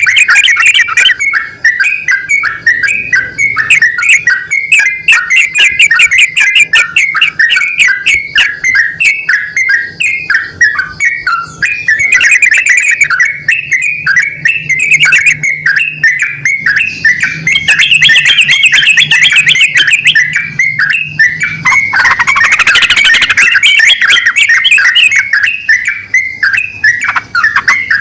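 Sooty-headed bulbul singing its fast rolling 'ropel' song: a loud, unbroken stream of quick chattering notes, with a rising sweep about 22 seconds in.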